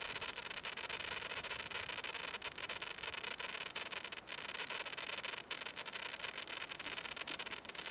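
Steady hiss with no clear pitch, broken by a few brief dropouts.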